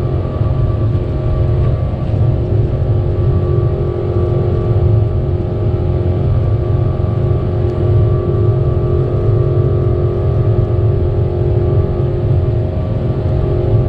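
Boeing 777-200 cabin noise: the jet engines drone steadily with a low rumble and a few steady tones over it, and the airflow rushes past the fuselage as the aircraft flies after takeoff.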